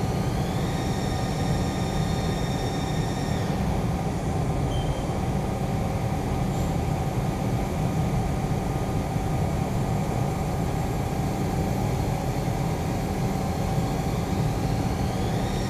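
Haas ST-10 CNC lathe taking light facing passes with flood coolant on: a steady spray of coolant over the machine's running noise. A high whine climbs in pitch about half a second in, holds for a few seconds and drops away, then climbs again near the end.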